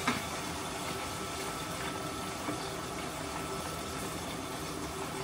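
Steady sizzling hiss of food frying in hot oil, with a short click at the very start.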